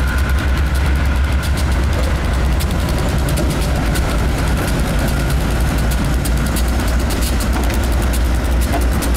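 Diesel freight locomotives rolling past close by: a steady, heavy low engine rumble with running noise and fine ticking from the wheels and track.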